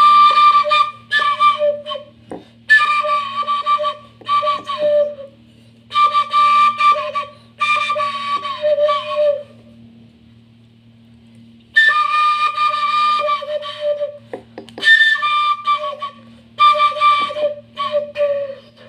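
A flute-like melody in short phrases of about a second each, with pauses between them, over a steady low hum. A few faint clicks sound between the phrases.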